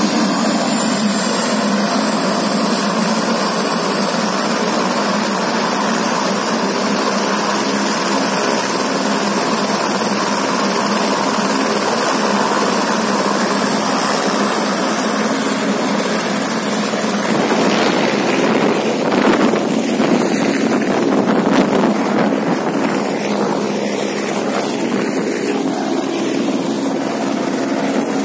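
Light turbine helicopter running on the ground, its rotor turning and its turbine whine rising slowly. A bit past halfway the rotor noise grows louder and rougher as it lifts off.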